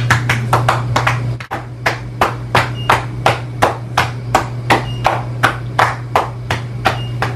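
A hand patting an elderly person's back: steady slaps at about three a second, a little quicker in the first second and a half, with a short break just before the pace settles.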